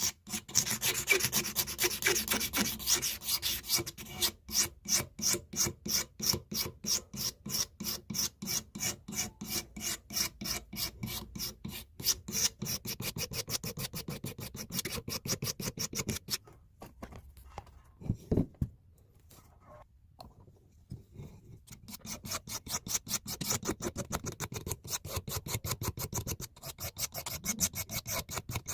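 Hand sanding the handle of a blacksmith's punch: quick, even back-and-forth rubbing strokes, about three a second. The strokes stop for a few seconds past the middle, then start again.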